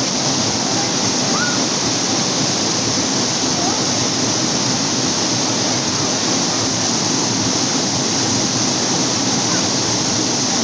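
Waterfall pouring onto a rocky pool: a steady, loud rush of falling water.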